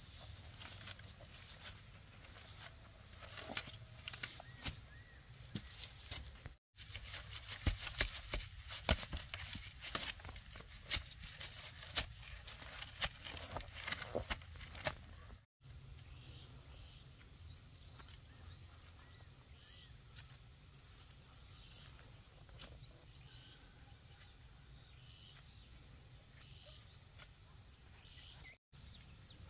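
Outdoor rural sounds: for about the first half, irregular rustling, scraping and light knocks of handwork, which stop abruptly. Then a quieter, even background with a steady high insect drone and only a few scattered clicks.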